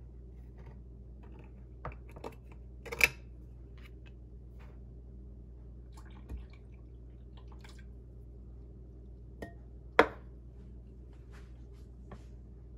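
A few scattered knocks and clinks as an opened tin can is handled beside a glass bowl and set on the countertop, the loudest about 3 seconds and 10 seconds in, over a steady low hum.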